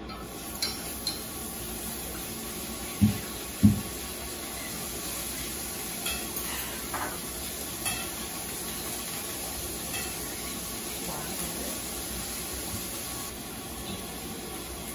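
Beef slices sizzling steadily on a tabletop grill pan, with light clicks of metal tongs against the pan now and then. Two dull thumps about three seconds in are the loudest sounds.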